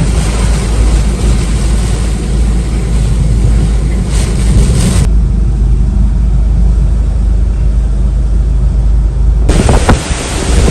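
Typhoon-force wind buffeting the microphone: a loud, heavy low rumble with a rushing hiss above it. The hiss drops away abruptly about five seconds in and returns near the end, while the rumble carries on.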